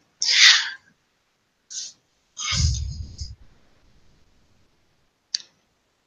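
A few short hissy, breath-like noises picked up close to a microphone, then a single sharp click about five seconds in, with dead silence between them.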